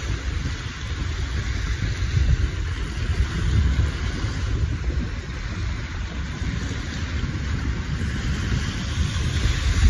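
Wind rumbling unevenly on the microphone over the steady wash of small waves breaking on the beach.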